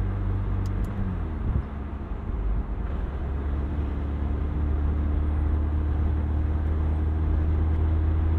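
2020 McLaren 720S Spider's 4.0-litre twin-turbo V8 running while the car is driven. The engine note drops and goes briefly quieter about a second in, then settles into a steady low drone.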